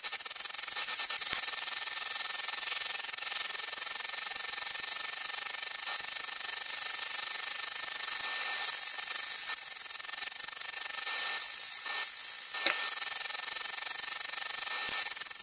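Hand file rasping across the edge of a steel knife blank held in a bench vise, filing in the blade profile: a steady scraping of file on steel with a few short breaks between strokes.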